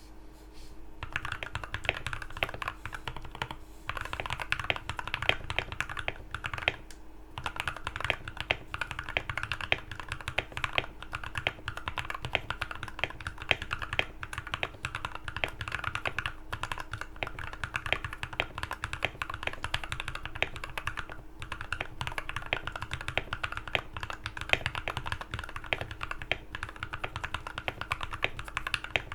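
Fast typing on a custom Akko MOD004 mechanical keyboard with lubed Thick Thock linear switches and PBT OSA keycaps, tape-modded: a dense run of marbly keystrokes starting about a second in, with a couple of brief pauses.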